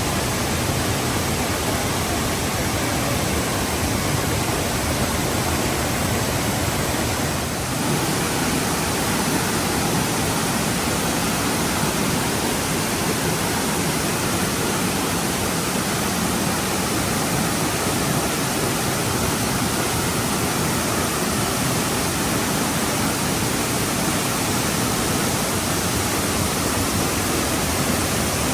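Waterfall rushing: a steady, even sound of falling water, with a brief dip about seven and a half seconds in.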